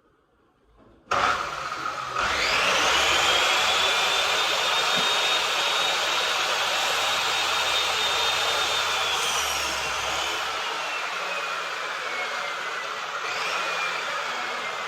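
An electric power tool's motor switches on about a second in, winds up to a steady high whine, then slowly drops in pitch as if under load and picks up again briefly near the end.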